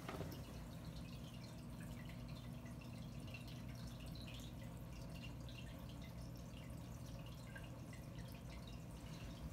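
Faint trickling and dripping of aquarium water, many small irregular drips, over a low steady hum from the tank's filter pump.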